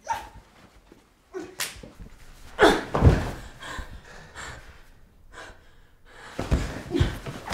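A physical struggle between two people: gasps and heavy breathing with several thuds, the loudest about three seconds in and two more near the end.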